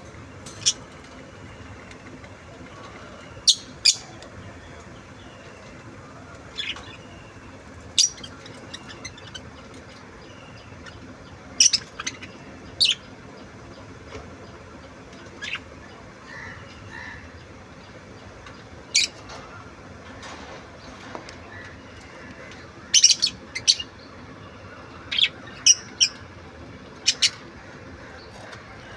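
Budgerigar giving short, sharp chirps, scattered every second or two and often in quick pairs, over a faint steady background noise.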